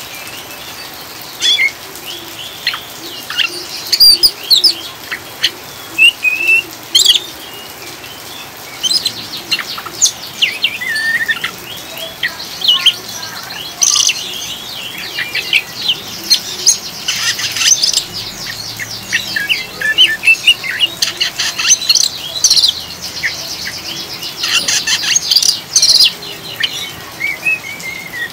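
Oriental magpie-robin giving its rapid twittering 'ngriwik' call in short bursts and quick runs of notes, over a steady hiss of rain.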